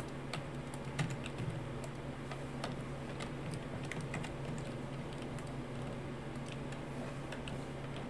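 Scattered, irregular computer keyboard keystrokes and clicks over a steady low hum.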